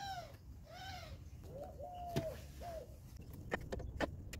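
A bird calling four times, each call a short note that rises then falls, then a few sharp clicks near the end.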